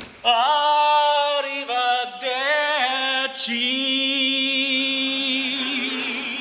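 Male barbershop quartet singing a cappella in close harmony. The voices enter together just after the start, move through a few chord changes, then hold one long chord with vibrato from about halfway through.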